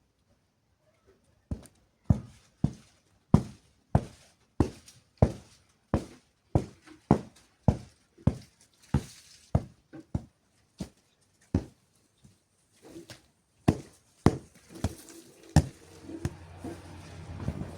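A blanket being beaten to knock the dust out: about twenty sharp whacks at a steady pace of roughly one and a half a second, then a few slower, uneven ones. A low steady hum comes in near the end.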